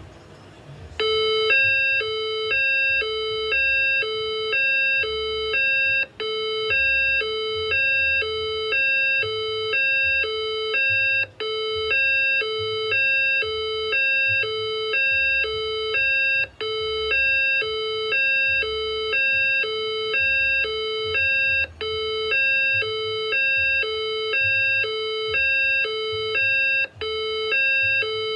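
Fire alarm speaker sounding a loud electronic two-note alarm tone that alternates high and low about once a second. It starts about a second in, with a brief break every five seconds or so.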